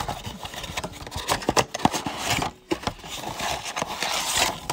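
Panini Contenders football blaster box being opened by hand and its card packs taken out: cardboard scraping and rustling, wrapper crinkling and scattered small clicks.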